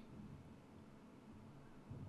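Near silence: faint room tone, with one brief faint low sound near the end.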